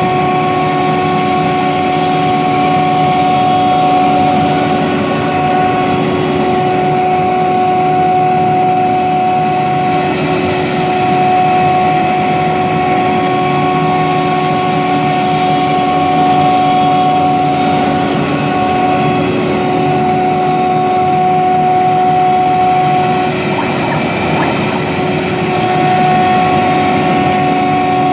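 Discarvery CNC gantry wood router running, its spindle giving a steady high whine over the noise of the cut as it mills wood. Past the two-thirds mark the whine drops out for about two seconds under a rougher cutting noise, then returns.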